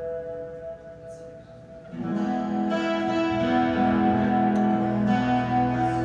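Steel-string acoustic guitar and upright double bass playing together live. A held chord fades out quietly, then about two seconds in the guitar comes back in with fuller, louder chords over a sustained low bass note.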